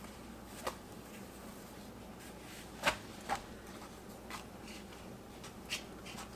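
Hands handling and stretching soft pizza dough on a floured counter and onto a wooden pizza peel: quiet rustling with a few light taps, the sharpest about three seconds in.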